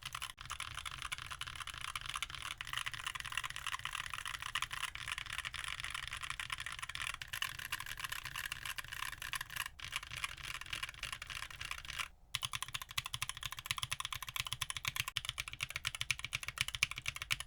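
Continuous fast typing on a mechanical keyboard fitted with Keebfront Doom long-pole tactile switches, a dense run of keystroke clacks with a brief pause about twelve seconds in.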